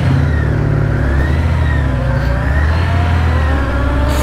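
Honda CBR900RR Fireblade's inline-four engine on its stock exhaust, pulling away with the revs rising and dipping a few times.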